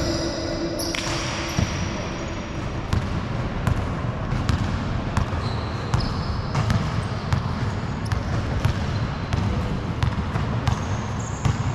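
Basketball being dribbled on an indoor court, its sharp bounces repeating every half second to a second.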